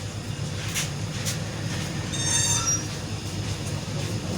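Light clicks of hand work on the laptop hinge parts, then a brief high-pitched metal squeak about two seconds in, over a steady low hum.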